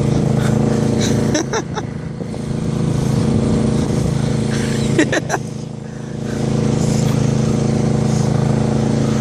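An engine running steadily close by, dipping briefly in loudness twice, with a few short clicks or scrapes about a second and a half in and again about five seconds in.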